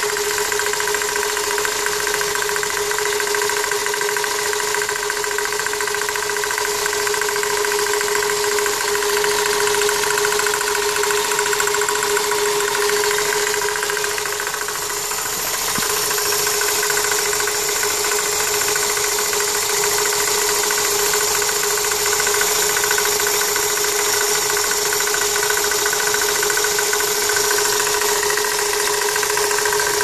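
A 1999 Toyota Corolla's 1ZZ-FE four-cylinder engine running steadily with a knocking from the accessory belt area. The owner traces the knock to the power steering pump pulley, which is tight, and wonders whether the pump bearings or the belt tensioner is to blame.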